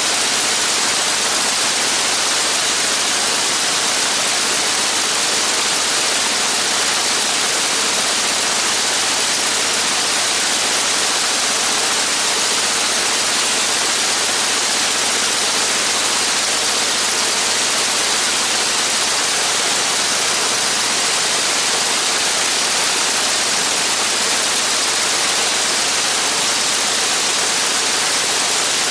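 Radial engine of a Spirit of St. Louis replica aircraft running steadily during a ground run, heard as a loud, even rushing noise with only a faint hum under it.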